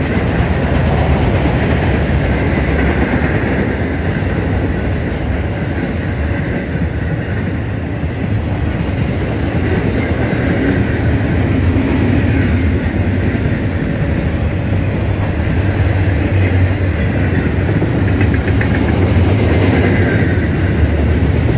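Intermodal freight train rolling past, its trailers on flatcars and double-stacked containers in well cars, making a steady rumble of steel wheels on rail.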